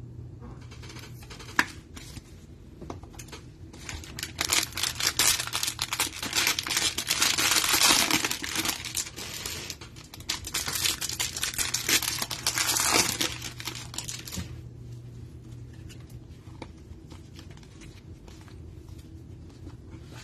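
Plastic wrapper of a Mosaic football trading-card cello pack being torn open and crinkled: a dense crackle that starts about four seconds in, lasts about ten seconds and then fades to faint handling. A single sharp tap comes about a second and a half in.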